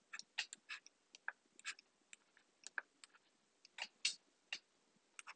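Faint, irregular clicks and taps of a stylus on a drawing tablet as a box is drawn by hand.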